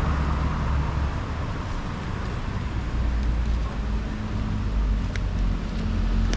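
City street traffic: cars and other motor vehicles running past as a steady low rumble, with an engine hum settling in during the second half and one brief sharp sound about five seconds in.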